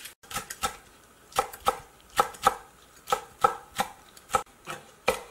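Chef's knife chopping cheongyang green chili peppers into thin rings on a wooden cutting board: sharp knocks of the blade on the board, about three a second and often in quick pairs.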